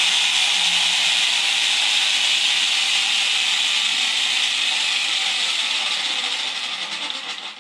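Electric angle grinder with a cut-off wheel running steadily as it cuts steel pieces for the car's frame, winding down near the end as it is switched off.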